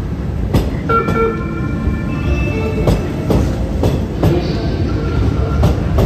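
Renovated MF67 Paris Métro train pulling out of the station: a steady low rumble with irregular sharp clicks from the wheels over the track, and a few high squealing tones about one to three seconds in.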